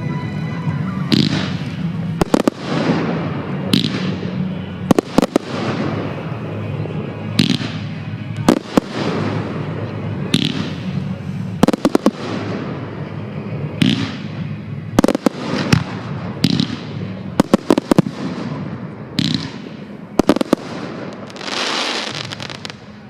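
Display fireworks going off in quick succession: sharp bangs about every second, several in quick pairs and triples, each followed by a fading hiss, with a longer hiss near the end.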